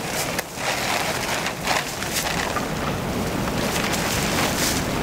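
Plastic camouflage tarp crinkling and rustling in bursts as it is pulled and handled, over a steady low rumble of wind on the microphone.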